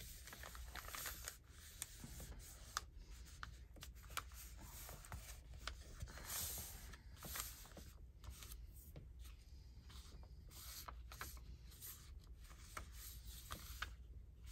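Hands rubbing and smoothing a paper journal page flat, soft brushing strokes with scattered small taps and clicks of paper being handled.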